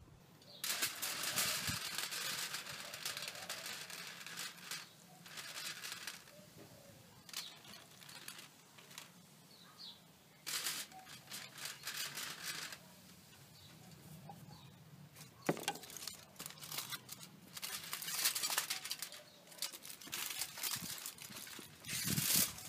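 Aluminium foil crinkling and rustling in several bursts as a tray of ribs is wrapped, with liquid poured from a drink can onto the ribs partway through.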